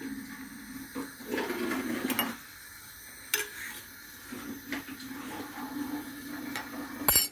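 Wooden spoon stirring a large stainless steel pot of aşure, scraping through the wheat and chickpeas and knocking against the pot's side a few times, with the sharpest knock near the end. A steady low hum runs underneath.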